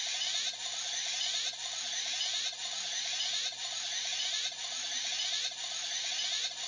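A Kamen Rider Ex-Aid toy weapon's speaker playing a looping electronic standby sound: a steady, buzzy synthesized loop with a rapidly pulsing mid tone.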